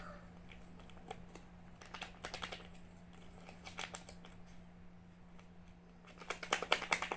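Small plastic sachet handled and snipped open with scissors: short runs of sharp clicks and crinkles, the densest and loudest near the end, over a steady low hum.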